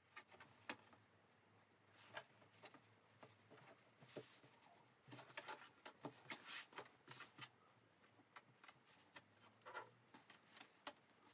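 Faint, scattered rustling and soft ticks of cotton fabric being handled and arranged on a table.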